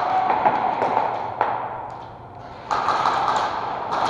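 Footsteps and gear shuffling on a concrete warehouse floor, in a reverberant hall. A single sharp tap comes about a second and a half in, and the movement grows louder just under three seconds in.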